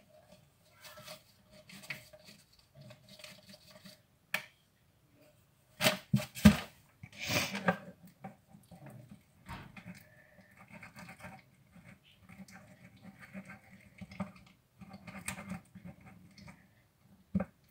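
Homemade glue-and-baking-soda slime being stirred with a stick in a plastic cup and then squeezed and kneaded by hand: sticky squelching and clicking, with a couple of sharper knocks about six seconds in. The slime is still soft and not yet thickened.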